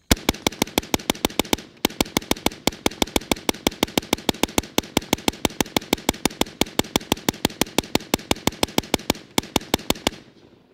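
Long string of rapid rifle fire from an AR-style rifle fed by a Magpul D60 drum, about six shots a second, with a short break about two seconds in, stopping about ten seconds in.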